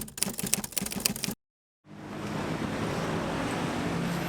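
A fast run of sharp clicks cuts off into a moment of silence. Then comes a steady wash of city traffic noise with wind on the microphone.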